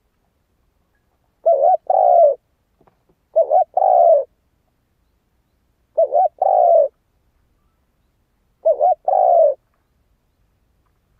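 Spotted dove cooing its song four times, about every two and a half seconds: each phrase a short clipped note followed by a longer, slightly falling coo. This is the decoy call used to provoke wild spotted doves.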